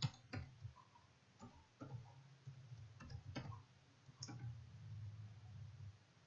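Computer keyboard being typed on: about ten separate key clicks at an irregular pace, over a faint low hum.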